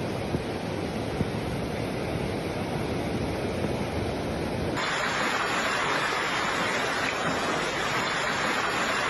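Floodwater rushing fast through a street, a steady noise of moving water. About five seconds in the sound changes abruptly and the rush becomes brighter and harsher.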